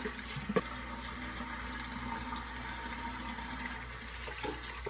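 Bathroom tap running steadily into a sink while he rinses up after shaving, with a few small splashes.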